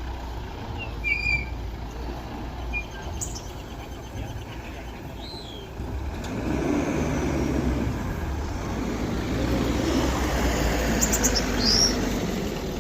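Heavy diesel construction machinery running steadily, its engine growing louder and fuller from about six seconds in. Birds chirp a few times over it.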